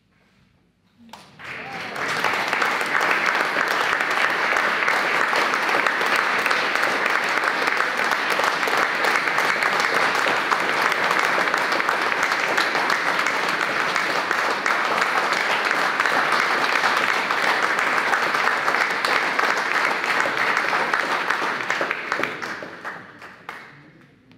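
An audience applauding: clapping breaks out about a second in, quickly reaches full strength, holds steady, then dies away near the end.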